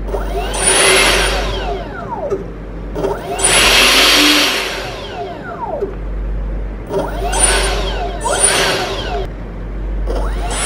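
60 mm electric ducted fan with a brushless motor revved up in four short bursts, each a rising rush of air and whine that spins down with a falling pitch.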